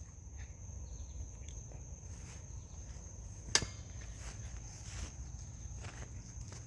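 Quiet workshop room tone: a steady high-pitched whine over a low hum, with a few faint ticks and one sharp click about three and a half seconds in.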